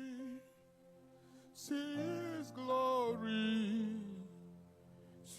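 Soft, slow worship singing: a voice holds long, drawn-out notes, with a pause of about a second early on before the singing resumes.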